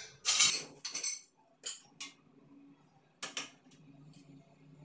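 White tubular parts of a clothes-hanging stand clattering and knocking together as they are handled and fitted: a quick run of clinking knocks in the first second or so, a few single knocks, then a pair of knocks just past three seconds. A faint low hum sits underneath in the later part.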